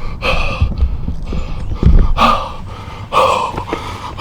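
A man breathing hard in heavy, shaky gasps about once a second, from the rush of adrenaline just after a bow shot at a buck, with a couple of low thumps in between.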